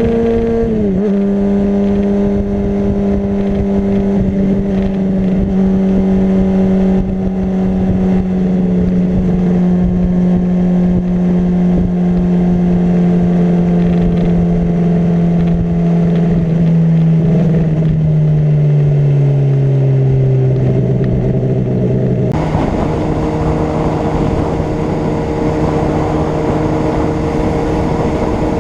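Honda CBR600RR's inline-four engine heard from on the bike while riding. The engine note drops about a second in and then sinks slowly as the revs fall. About 22 seconds in it jumps to a higher, steady pitch with a louder rush of wind.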